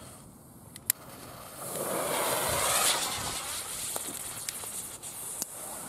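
Firecracker fuses burning after being lit: a sharp click about a second in, then a hiss of spraying sparks that builds, is loudest around two to three seconds in, and settles to a weaker steady fizz.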